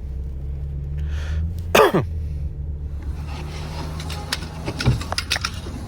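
Hand-tool work on the water pump pulley and tensioner in an engine bay, over a steady low hum. About two seconds in comes one short sharp sound that falls steeply in pitch. A few metal clicks follow near the end.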